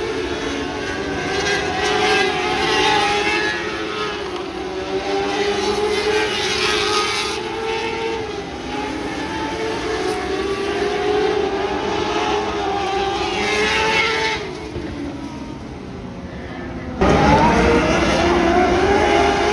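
Several lightning sprint cars racing on a dirt oval, their engines howling together with pitches that rise and fall as they accelerate and lift through the turns. The sound drops a little, then gets suddenly louder near the end.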